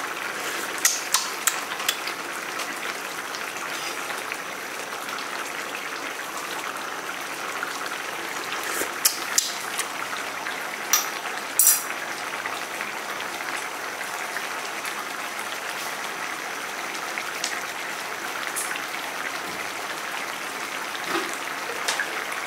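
Fish curry simmering in a pan: a steady bubbling hiss, with a few sharp pops about a second in and a cluster of louder pops around the middle.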